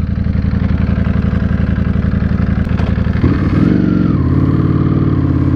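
Ducati Panigale V4 S superbike's V4 engine running at low revs with an even, pulsing note. About three seconds in it revs up as the bike pulls away, then holds a higher, steady note.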